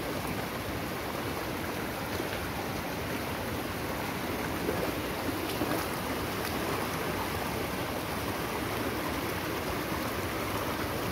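Fast-flowing, flood-swollen muddy stream rushing steadily past.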